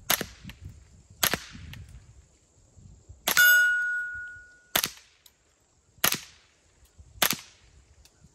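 Six suppressed shots from a semi-automatic Winchester Wildcat .22LR rifle with a Silencer Co Switchback suppressor, firing CCI standard velocity ammunition, spaced about a second and a half apart; very quiet with the suppressor on. The third shot is followed by a ringing tone from a steel target that dies away over about a second.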